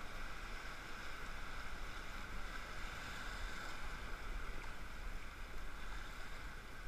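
Steady rush of whitewater in class III river rapids around a paddle raft.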